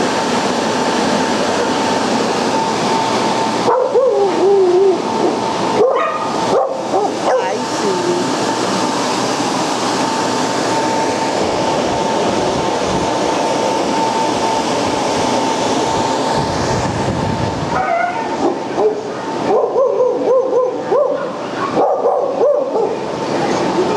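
Dogs whining and yipping in two spells, about four seconds in and again near the end, over a steady hiss with a thin steady hum.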